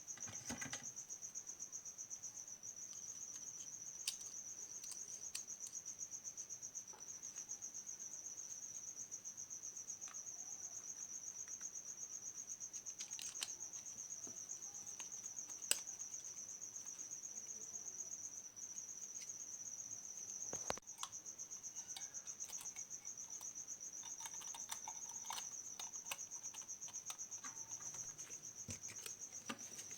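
A cricket trilling steadily in a high, fast-pulsing tone, with a few sharp clicks and taps scattered through it; the strongest knock comes about two-thirds of the way in.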